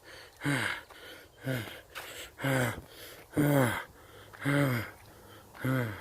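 A man's voice panting in loud, drawn-out 'hah' gasps, each falling in pitch, about one a second, six times. He sounds worn out by the heat.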